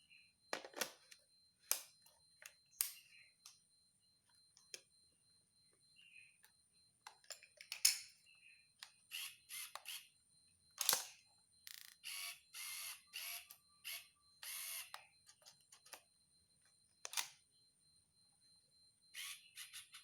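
A camera and lens being handled and tested: a series of sharp mechanical clicks, shutter releases among them, and about twelve to fifteen seconds in several short buzzy bursts from the camera and lens mechanism.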